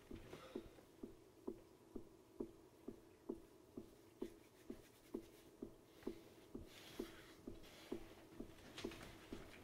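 Faint, steady dull ticking, a little over two beats a second and perfectly even, the repeating noise that torments the man. Soft rustling of bedclothes and clothing rises near the start and again about seven and nine seconds in.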